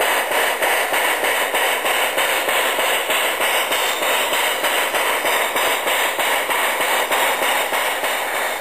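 Garden-scale 4-8-0 steam locomotive running slowly in reverse: a steady, loud hiss with a quick, even rhythm of chuffs.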